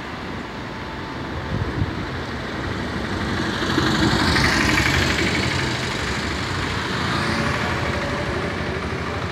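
Street traffic: engines running steadily as a motor vehicle drives past close by, loudest about four to five seconds in. A smaller swell follows near seven seconds.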